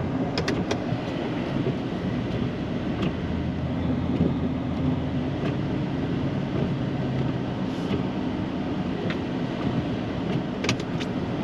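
Plow truck's engine running steadily under load while pushing snow, a low continuous rumble, with a few light clicks about half a second in and again near the end.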